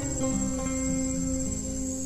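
Background music of plucked guitar notes, with a steady high insect buzz running underneath.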